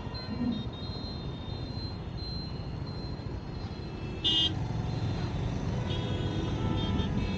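Road traffic noise on a city street, with a short, loud vehicle horn toot about four seconds in and fainter horns near the end.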